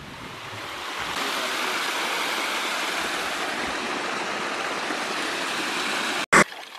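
Steady rushing of stream water over rocks near a small waterfall. It cuts off abruptly near the end with a brief loud click.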